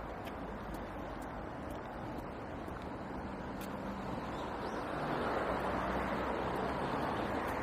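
Steady road traffic noise from passing cars, swelling louder about five seconds in as a vehicle goes by.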